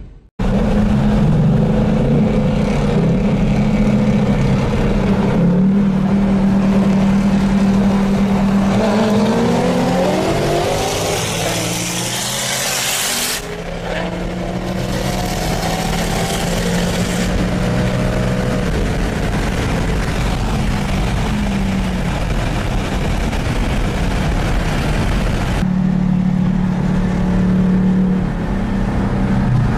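Performance car engines running loudly. From about nine seconds in the engine note climbs as a car revs or accelerates, then breaks off abruptly into steady running again.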